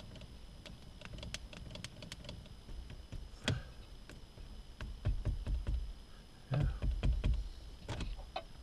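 A phone being handled in a plastic car-vent phone holder: scattered small clicks, with heavier knocks from about three and a half seconds on as the phone is pushed and gripped to pull it out of the mount.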